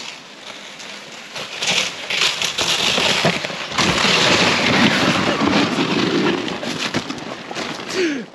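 A loaded plastic sled sliding and scraping down a snowy trail with a rider on it, then ploughing through snow and snow-laden pine branches in a wipeout. A rushing hiss of snow and brush builds about a second in and stays loud, broken by many knocks.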